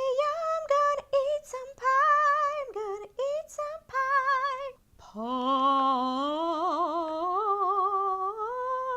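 A high female voice singing a short tune, with vibrato on the notes: a run of short sung notes, a brief break about halfway, then one long phrase that climbs gradually in pitch.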